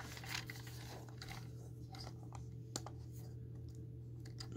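Faint plastic clicks and handling noises of fingers working the battery-compartment cover on the underside of a small camcorder, with one sharper click a little before three seconds in, over a steady low hum.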